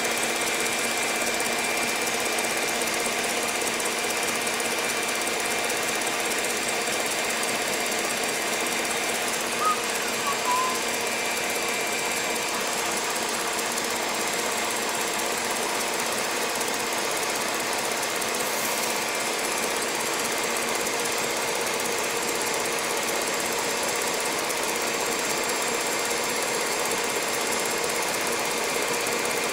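KitchenAid Heavy Duty stand mixer running steadily at high speed, its wire whisk beating warmed eggs and sugar in a steel bowl as a genoise batter is whipped towards the ribbon stage. Two brief clicks about ten seconds in.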